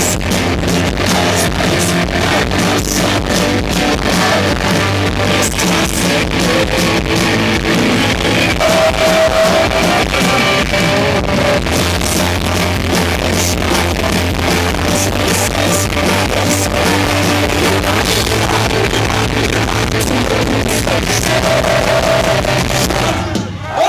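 A live punk rock band playing loud, with electric guitars and drums. The sound dips briefly near the end.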